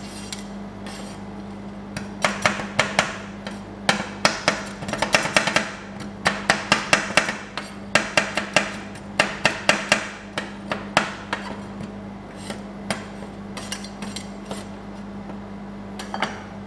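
Two stainless steel spatulas chopping chocolate and nuts on a steel ice-cream cold plate: quick runs of sharp metallic clacks as the blade edges strike the plate, densest from about two seconds in to about ten, then scattered. A steady low hum runs underneath.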